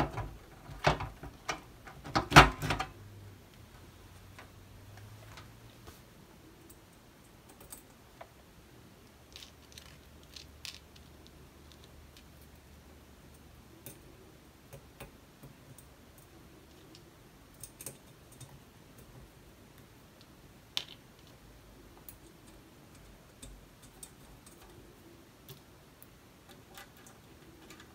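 Small metal clicks and knocks of hardware being handled as a transformer is fitted into a steel computer case and nuts are put on its mounting studs. A cluster of knocks comes in the first few seconds, the loudest about two and a half seconds in, followed only by scattered faint clicks.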